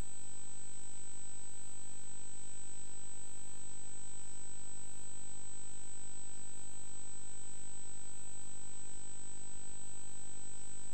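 A steady, unbroken high-pitched electronic tone with a faint low hum beneath it; no speech or music.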